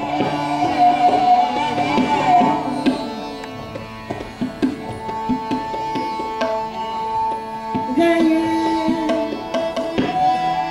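Indian classical vocal music: a woman singing held and gliding melodic lines over a tanpura drone, with tabla strokes accompanying.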